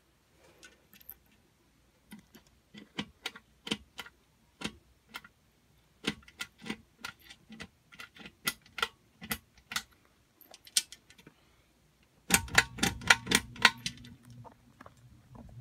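Scattered sharp clicks and taps. About twelve seconds in comes a quick run of louder clicks as the pull chain is worked, and the Hampton Bay Kennesaw ceiling fan's motor starts with a steady low buzzing hum.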